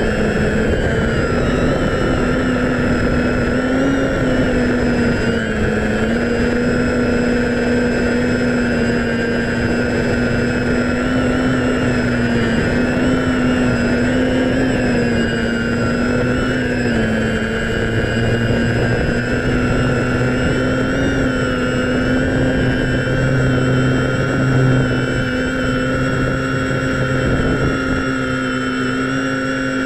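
DJI F550 Flamewheel hexacopter's motors and propellers running steadily, a buzzing whine whose pitch wavers slightly up and down, heard from the GoPro mounted on the craft.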